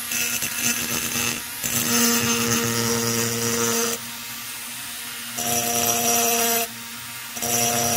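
Rotary tool with a small diamond ball point, its motor whining steadily, grinding the intake port edge of an Echo CS-670 chainsaw cylinder in four short passes: the sharp port edge being chamfered under light pressure.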